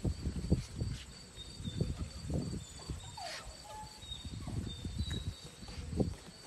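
Labrador puppies' paws scrambling over wooden deck boards: irregular low thumps and knocks, loudest near the start and again near the end, over a steady high insect buzz.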